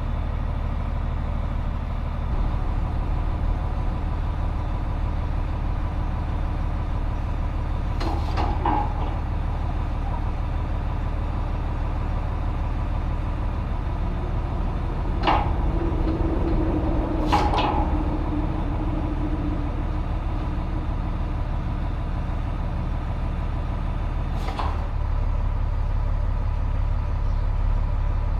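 An engine idling steadily, with four sharp clanks over it and a brief rise of a lower hum about halfway through.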